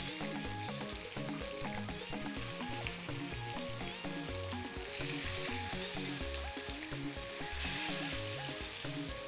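Flour-coated fish pieces sizzling steadily in hot oil in a frying pan, the hiss swelling about five seconds in and again near eight seconds. The oil bubbles without popping or spattering, the flour coating holding the fish's moisture in. Background music plays underneath.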